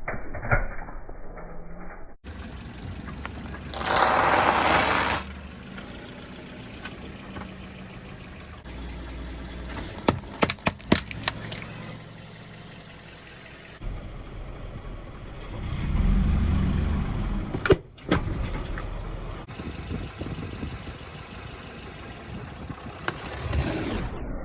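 A car's engine running and its tyres rolling over objects, spliced from several short clips, with a run of sharp cracks and crunches about ten to twelve seconds in and a single crack near eighteen seconds.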